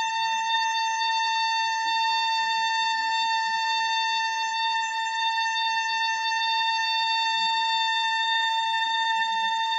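Microwave oven's cooling fan squealing: one steady high-pitched whine with overtones over a faint low hum. The fan's bearing is dry and needs lubricating.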